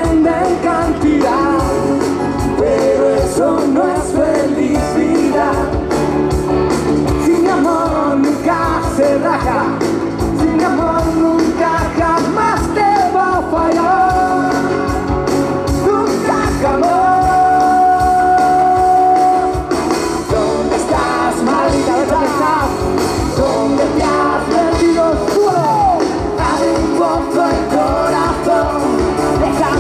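A live pop-rock cover band playing, with a lead melody over drums and bass; the melody holds one long note about two-thirds of the way through.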